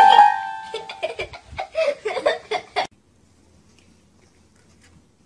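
A ringing tone that fades out within the first second, then about two seconds of a person's voice in short bursts, then quiet.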